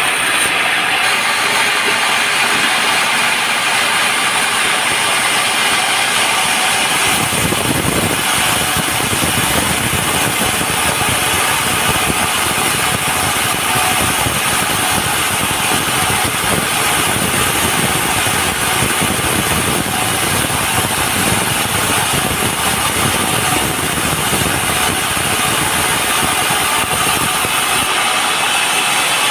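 Sawmill running and sawing a large teak log: steady, loud machine noise, with a deeper, rougher sound setting in about seven seconds in.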